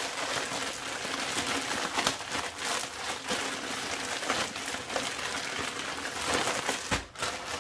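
Plastic zip-top bag crinkling and rustling as sliced apples with brown sugar and cinnamon are shaken around inside it. There is a brief low thump near the end.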